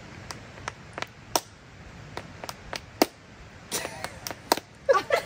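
Hands slapping fists into palms for rock-paper-scissors: two quick runs of about four sharp taps each, then voices near the end.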